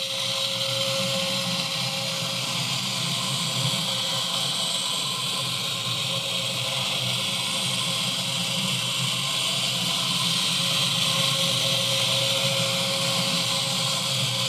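Small electric drive motors and gearing of model car-system trucks (a Unimog and an Econic) running as they drive around the road layout: a steady high whir, with a faint hum that comes and goes.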